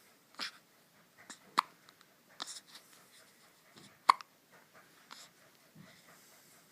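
Four-day-old newborn baby hiccupping: several short, sharp hiccups, the two loudest about two and a half seconds apart, with soft breathing between.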